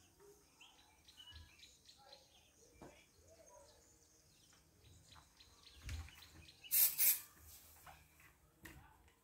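Small birds chirping outside while a gloved hand wipes a window pane, with faint knocks. About seven seconds in come two short, loud hissing bursts close together.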